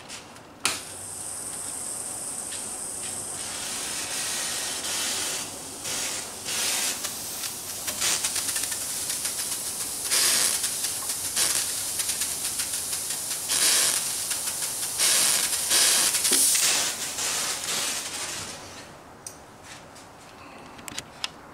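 Steam hissing from a hose and needle into the neck joint of a 1966 Guild Starfire, heating the glue to loosen the neck for a reset. It hisses steadily with several louder spurts in the middle, then dies away near the end.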